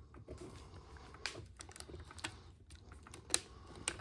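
Scattered light clicks and taps of small parts being handled as a CVD drive shaft is fitted through a bearing in an RC truck's axle, the sharpest click a little after three seconds in.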